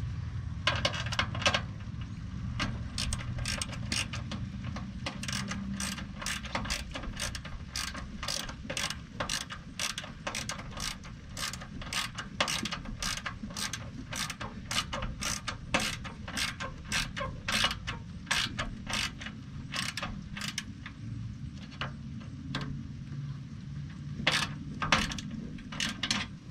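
Hand ratchet wrench clicking as a bolt is run in and tightened, in a long run of quick strokes a few clicks a second, with a short pause about three quarters of the way through.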